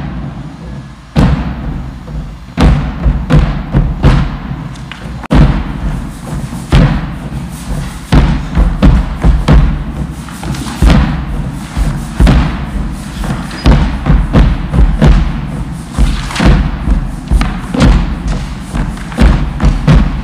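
Background music with a heavy, thumping drum beat over a steady bass, about one to two deep thumps a second.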